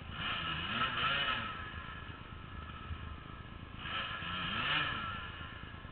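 Dirt bike engine revving up and falling back twice, each rev lasting about a second, with a steady lower engine sound between the revs.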